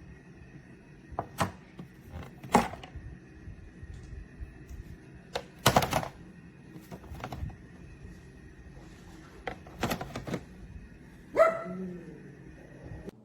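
Scattered knocks and clacks, with the loudest clusters about two and a half, six and ten seconds in. A short pitched sound falling in pitch comes near the end.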